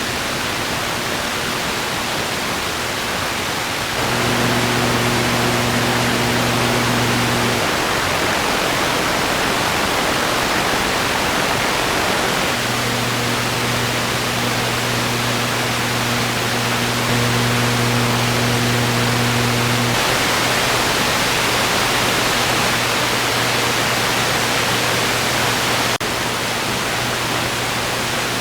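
Television static: a steady, even hiss of white noise. A low hum joins it about four seconds in for a few seconds, and again from about twelve seconds on.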